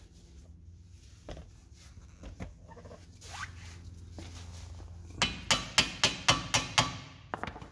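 A hammer strikes the end of a Lisle hand impact driver about seven times in quick succession, roughly three blows a second, starting about five seconds in: sharp metal-on-metal hits. The blows drive and twist the bit in a stuck brake rotor retaining screw to break it loose.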